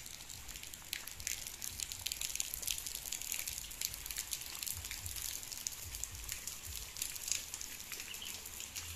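Light rain falling, with many small drops ticking on leaves and the wet brick road, over a low rumble.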